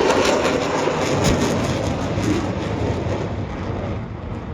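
Jet aircraft passing, a loud rushing engine noise that fades steadily as it moves away.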